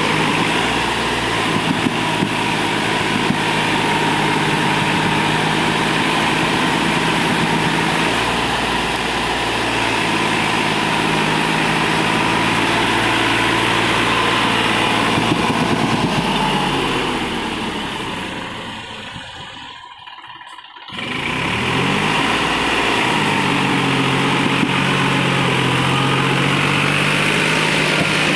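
New Holland 4710 4WD tractor's three-cylinder diesel engine running hard as it pulls a trolley loaded with river sand through soft sand. The engine note bends in pitch a few times. About two-thirds of the way through the sound fades almost out for about a second, then the engine comes straight back.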